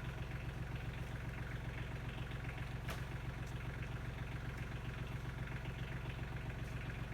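Tractor engine running steadily at an even idle, with one sharp click about three seconds in.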